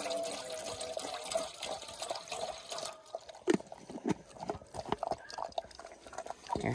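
Water pouring into a dog's bowl for about three seconds. Then comes a run of irregular clicks and knocks as the dog eats from its bowl.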